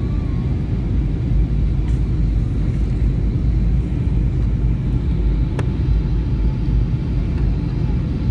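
Airliner cabin noise: the steady low rumble of the jet engines and airflow heard from inside the passenger cabin, with a single sharp click about five and a half seconds in.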